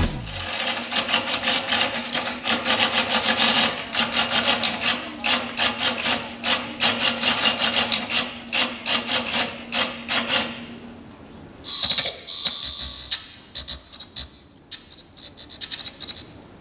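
Sound-effect soundtrack of a stage performance: a dense run of rapid clicking and scratching over a faint low hum, then a high steady tone about twelve seconds in, and more quick clicks near the end.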